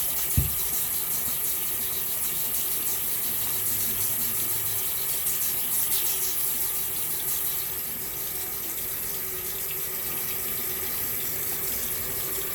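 Tap water running steadily into a sink, with a single short knock about half a second in.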